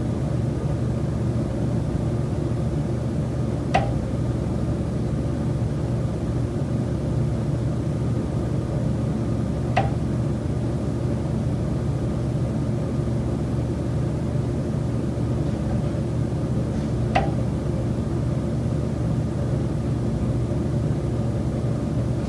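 Knocking noise in a high-rise condo unit, coming from the building's common elements: three short, sharp knocks several seconds apart, over a steady low mechanical hum.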